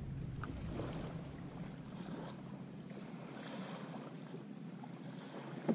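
Steady wind noise on the microphone, with a few faint clicks and a short knock near the end as a Nanopresso portable espresso maker is handled and turned over.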